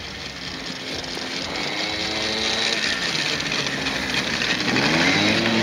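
Two-stroke engine of a Gilera Typhoon 50 scooter, built up as a snow vehicle, running as it rides over snow. It grows steadily louder as it approaches, its pitch rising and falling with the throttle and wavering up and down near the end.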